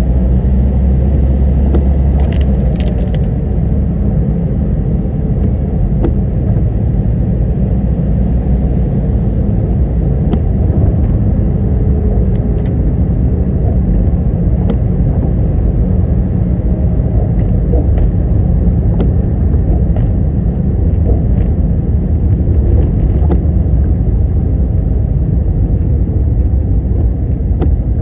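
Car driving along a road: a steady low rumble of engine and tyre noise, with a few faint clicks.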